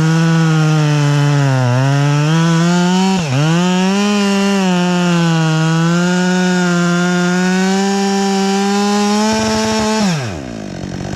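Two-stroke chainsaw running at high revs while cutting wood, its pitch sagging and recovering with the load, with a brief sharp dip about three seconds in. Just after ten seconds the throttle is released and the engine winds down towards idle.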